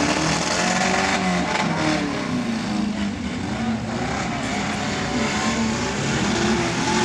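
Engines of a pack of figure-eight race cars running together as they circle the track at a slow pace, several engine notes rising and falling.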